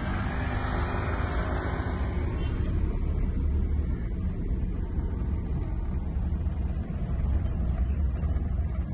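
Car driving in traffic, heard from inside the cabin: a steady low rumble of engine and road noise. Brighter, hissier noise fades out over the first two seconds.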